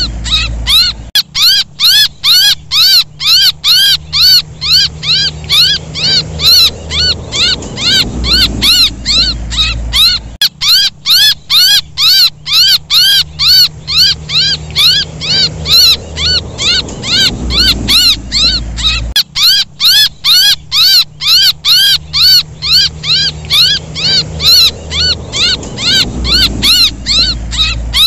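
A young bird's distress calls, repeated without pause: short, high, arched squeaks, about three a second, over a low rumble that comes and goes.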